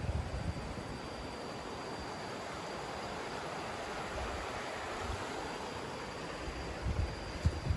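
Rural outdoor ambience: a steady rushing hiss, with low wind buffets on the microphone near the start and again near the end, and a faint steady high tone.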